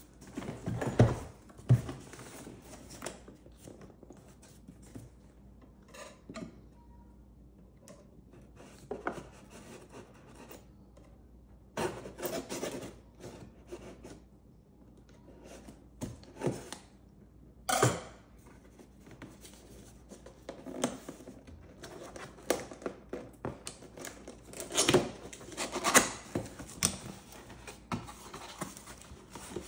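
A cardboard laptop shipping box being opened by hand: a knife slitting the seal, cardboard scraping and rubbing as tabs and flaps are worked loose, with scattered sharp knocks of the box and knife against the table, loudest near the start and again near the end.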